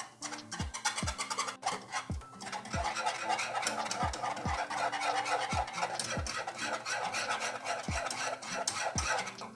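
A utensil scraping quickly and continuously around a pot as a mixture is stirred, stopping at the very end. Background music with a steady kick-drum beat about twice a second plays underneath.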